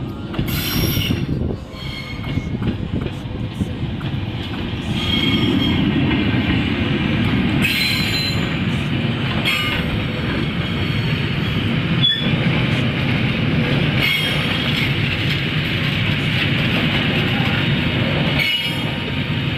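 A diesel-hauled passenger train passes close by: first the locomotive, then a line of coaches. There is a steady rumble of wheels on rail, clattering over rail joints now and then, and brief high wheel squeals.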